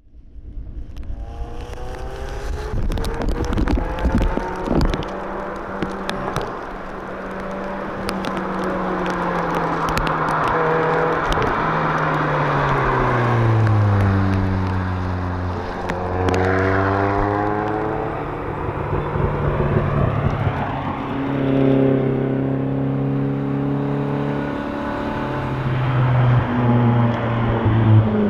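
Lotus Elise S engine under hard driving: its pitch climbs under acceleration and steps down at each gear change, falls away sharply about halfway through as the car slows, then climbs again, with scattered clicks and rushing noise in the first half.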